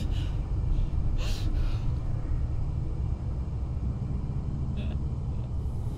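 A deep, steady rumble, with a woman's sobbing breaths and sniffs over it: one right at the start, one just over a second in and one about five seconds in.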